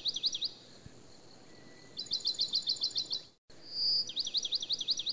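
A bird chirping in quick runs of high, down-slurred notes, about eight a second. Each run is led by a short whistle, and the same phrase comes three times.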